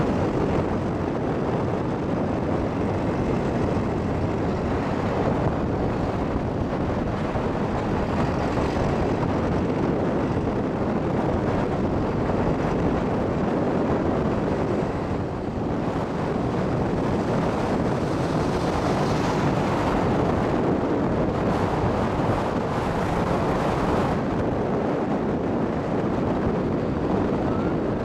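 Steady rushing noise from riding on top of a moving truck: wind buffeting the microphone, mixed with the truck's road and engine noise. It dips briefly about halfway through.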